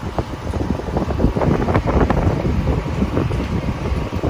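A loud, uneven low rumble of wind on the microphone mixed with street and vehicle noise.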